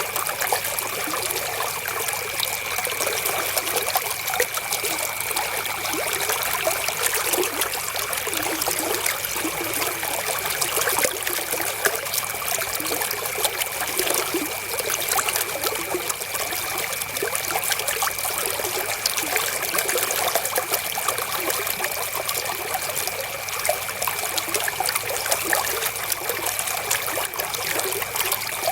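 River water flowing and trickling, a steady even wash of water noise with no breaks, and a thin steady high tone faintly beneath it.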